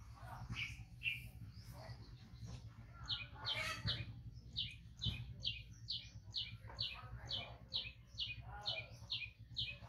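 A bird calling a rapid series of short, high, slightly falling notes, about two to three a second, starting about three seconds in, over a steady low hum.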